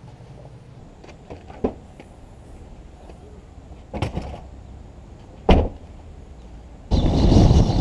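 A car's rear hatch being worked: a clatter of clicks and knocks as it is handled, then a single sharp slam as it shuts, the loudest sound. Near the end a loud steady rushing noise cuts in suddenly.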